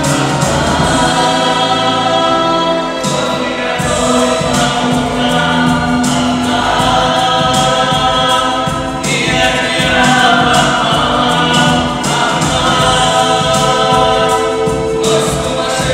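Music with singing voices over a backing track, playing continuously.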